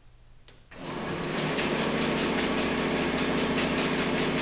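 Martin Yale 2051 paper folding machine starting up and running at speed, folding sheets: a click about half a second in, then a loud steady mechanical running sound with a fine rapid ticking that builds up within about a second.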